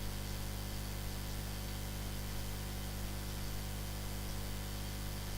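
Steady background hiss with a low, even hum; no distinct sound events.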